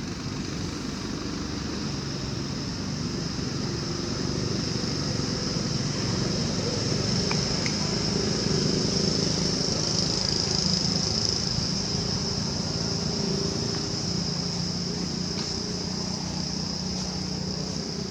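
A motor vehicle's engine running steadily, getting louder towards the middle and easing off again, under a constant high-pitched drone.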